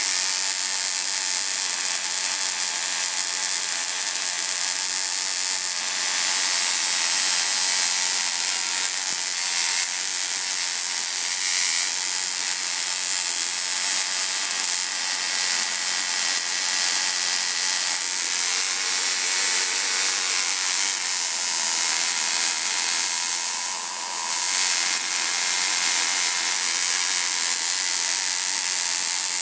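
Magnifier-style Tesla coil running, its sparks making a steady, loud rasping buzz, with a brief dip about four-fifths of the way through.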